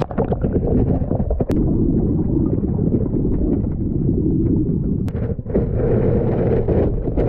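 Muffled underwater rumble and sloshing picked up by a GoPro's microphone inside its waterproof housing, submerged in a wire crawdad trap. It starts suddenly as the camera goes under, with a couple of sharp ticks along the way.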